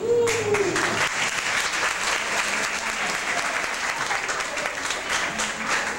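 Audience applauding, starting suddenly right after a thank-you speech, with a short voice call rising and falling over it at the start.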